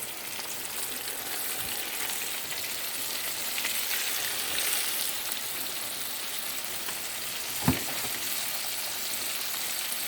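Battered chicken wings frying in a hot skillet, giving a steady sizzle. A single short knock sounds about three-quarters of the way through.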